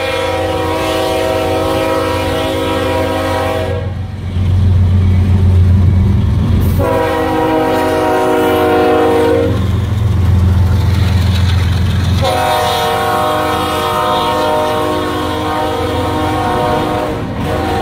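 Union Pacific freight locomotive passing at speed and sounding its air horn three times. The first blast cuts off about four seconds in, a shorter one follows, and a long one begins about halfway through and runs on. Between the blasts there is a heavy low rumble of the locomotive and wheels, then autorack cars rolling past.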